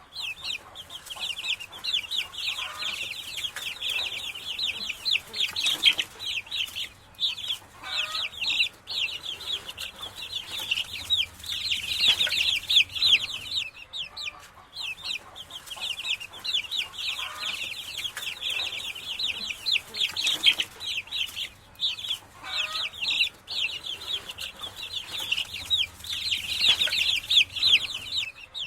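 A brood of baby chicks peeping continuously: many short, high, downward-sliding peeps overlapping, with a lower cluck now and then.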